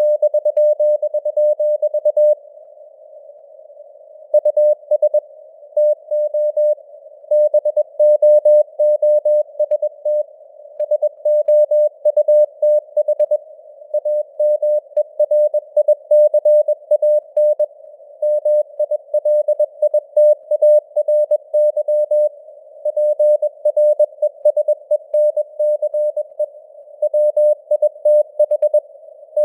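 Morse code (CW) sent at 21 words per minute as a single tone of about 600 Hz keyed in dots and dashes, over a narrow band of simulated radio hiss, the signal strength varying (QSB). The keying pauses for about two seconds shortly after the start.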